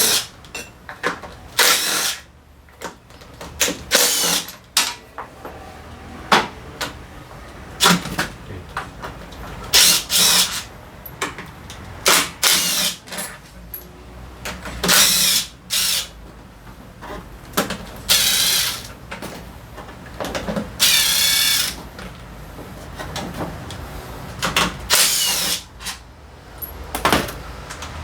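Daelim Couple 50 scooter's electric starter motor whirring in about a dozen short bursts, each under a second, and the engine never catches. The starter spins with a strange sound but does not turn the engine over, the sign of a failed start pinion that no longer engages the gear.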